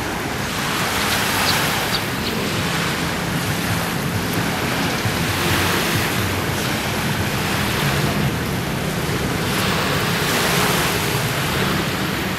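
Small sea waves washing onto a sand beach, the wash swelling and easing about every four seconds, with some wind on the microphone and a steady low hum underneath.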